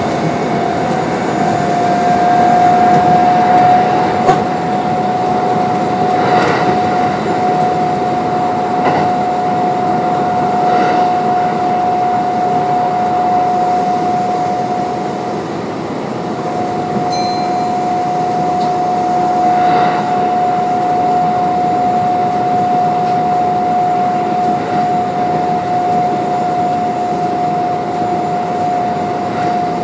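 Kintetsu 9200 series electric train with field chopper control running between stations, heard from inside the car: a steady rumble of wheels on rail with a constant high whine, and faint knocks every few seconds.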